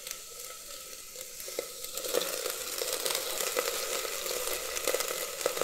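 Cut okra (bhindi) shallow-frying in hot oil in a pressure cooker: a steady sizzle with scattered light crackles. It grows a little louder about two seconds in as a spatula stirs the pieces. The okra is being fried lightly to take away its sliminess.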